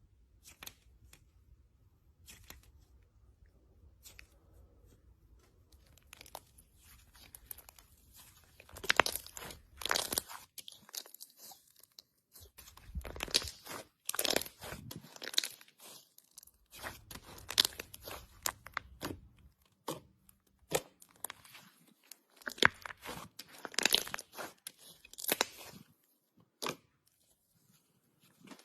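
Hands working slime, squeezing and stretching it, giving irregular runs of sticky clicks and pops with short quiet gaps between them.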